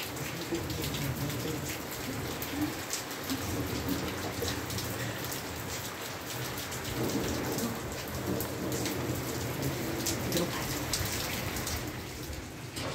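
Steady rain falling, with many sharp individual drop hits on a surface over a low thunder rumble that is strongest around the middle.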